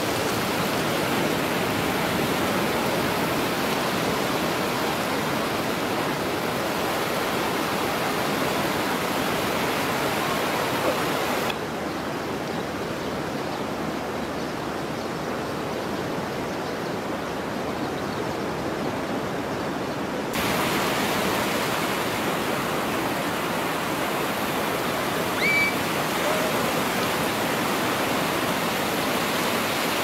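Heavy surf breaking along a sandy beach: a steady rush of waves and foam. The sound turns duller for several seconds in the middle.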